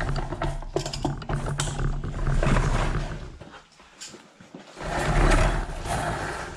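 Electric Eel Model C drain-cleaning machine running, its electric motor humming while the steel cable spins and rattles in the drum. It stops about three and a half seconds in and starts again about a second later.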